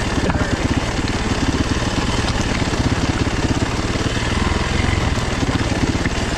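Yamaha WR450F's single-cylinder four-stroke engine running steadily at low revs, a fast even beat of firing pulses, as the dirt bike creeps down a steep rocky lane.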